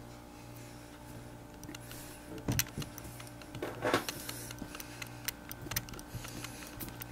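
Light clicks and knocks of kitchen utensils being handled on a worktop, with a short rubbing or rustling noise about four seconds in, over a steady low hum.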